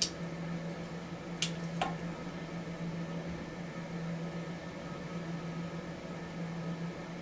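A steady low hum in a small bathroom. Three sharp clicks break it: one right at the start, and two close together about a second and a half in.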